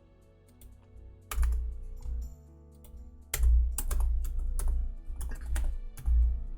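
Typing on a computer keyboard in short bursts of keystrokes, starting about a second in and busiest near the middle and end, over soft background music.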